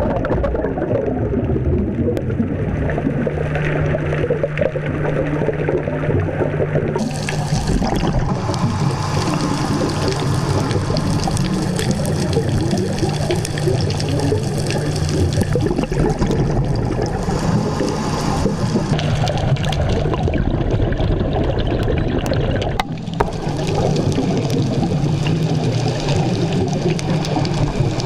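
Underwater recording through a dive camera housing: steady rushing water and bubble noise with a low hum underneath, turning hissier about seven seconds in.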